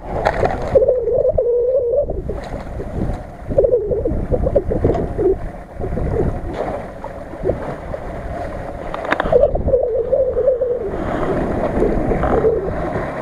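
Nissan Patrol off-roader's engine revving up and down in several spells as it drives through a flooded stream, with water rushing and splashing.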